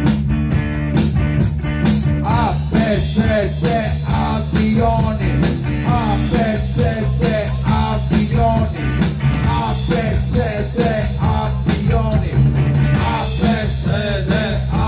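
Rock band playing live: electric guitars over a steady drum beat, with a melody line bending up and down between sung verses.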